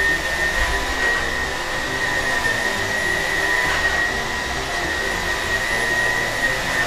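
Electrolux Animal 800 cordless stick vacuum running steadily while being pushed over a tiled floor, a constant rush of air with a steady high whine.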